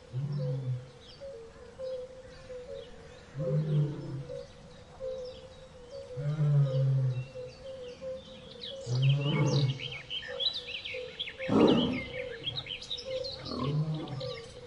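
Big cat giving short, low grunting roars about every three seconds, with one louder, harsher roar about two-thirds of the way through. Birds chirp and a steady faint hum runs behind.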